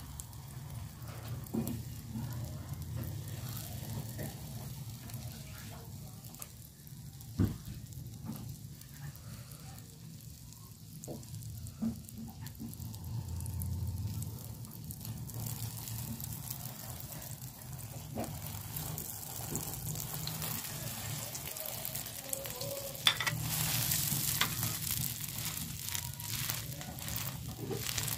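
Beaten egg sizzling on a flat metal griddle as a bun is pressed into it. The sizzle grows louder in the second half, over a low steady hum, with a few sharp knocks.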